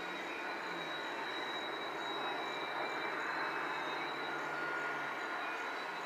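Strange train noise from nearby railway tracks: a steady wash of noise with a low hum that drops slightly in pitch about a second in and fades out around five seconds, and a thin high steady tone above it.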